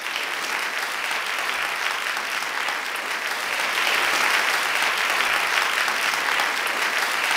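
Crowd applause: many hands clapping steadily, swelling a little about halfway through.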